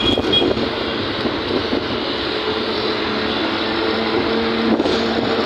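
Steady road traffic noise from a busy street, with a passing vehicle's engine hum coming in about halfway through.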